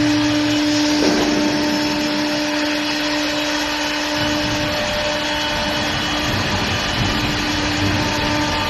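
CNC wood turning lathe running: a steady motor whine over a rushing noise. The whine holds steady for the first few seconds, then comes and goes from about five seconds in.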